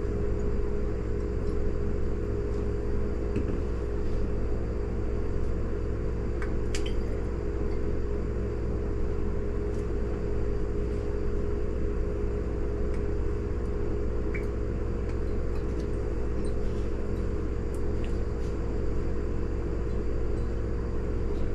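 A steady low hum runs throughout, with a few faint clinks of glass, about a third and two-thirds of the way in, as small bottles are handled and filled.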